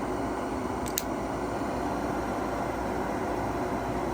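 Gas furnace's fan motor running steadily during a call for heat, with one sharp small tick about a second in. No pressure-switch click is heard: the switch has not closed.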